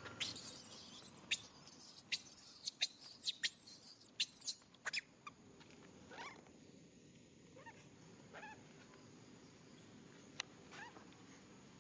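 Baby pigtail macaque screaming: about seven loud, very high-pitched squeals in quick succession over the first five seconds, then a few fainter calls.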